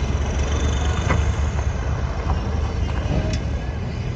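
Tractor diesel engine running steadily under way on the road, a continuous low rumble.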